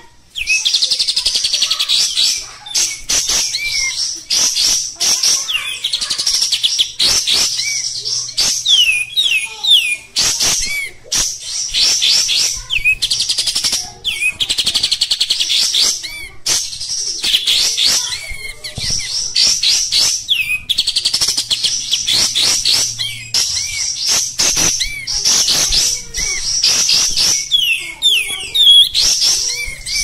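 Kapas tembak bulbul singing in the harsh 'kasar' style: dense bursts of rapid, high chattering notes with sharp slurred calls, repeated phrase after phrase about every two seconds.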